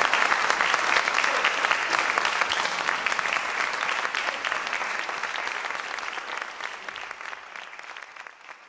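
Audience applauding, a dense patter of many hands clapping that slowly thins and fades away near the end.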